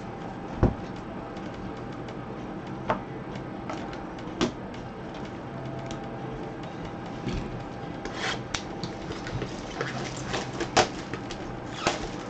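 Scattered light taps, clicks and rustles of a cardboard Topps Chrome trading-card box being handled and opened by gloved hands, over a steady low hum.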